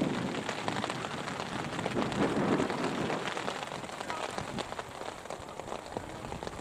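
Steady rain falling, with many small taps of drops landing close to the microphone.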